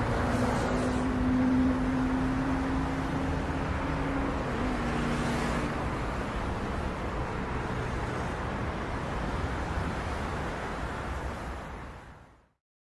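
Road traffic noise: a steady din of passing vehicles, with a steady low hum for the first few seconds. It fades out to silence near the end.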